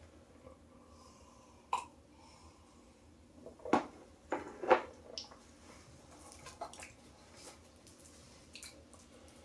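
A person drinking from a glass: quiet sips and swallows, then a cluster of loud short knocks and gulps about four to five seconds in as the glass is set down on the tabletop, followed by a few small clicks.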